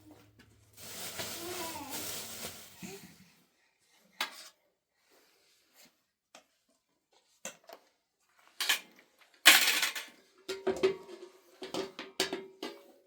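A voice speaking briefly, then dishes and cutlery clinking and clattering in scattered knocks, the loudest clatter about nine to ten seconds in, some knocks leaving a short ring.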